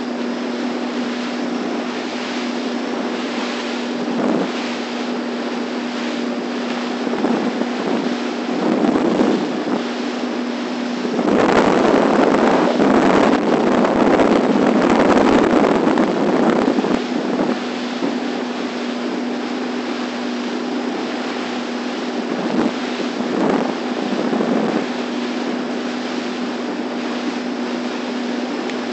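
Small motorboat under way: the engine's steady hum under wind buffeting the microphone and water rushing along the hull. The wind and water noise grows louder for several seconds, from about 11 to 17 seconds in.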